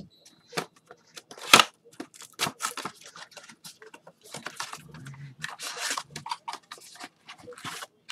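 Rustling, crinkling and clicking of trading-card packs and wrappers being handled and opened, in an irregular run of short noises with one loud sharp snap about a second and a half in.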